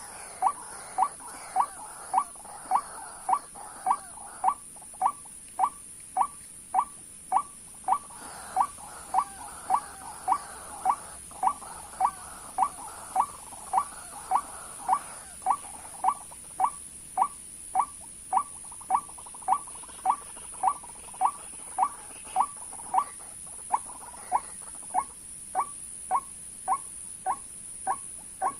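White-breasted waterhen call, a short note repeated very evenly about twice a second, as from a looped lure recording used for bird trapping.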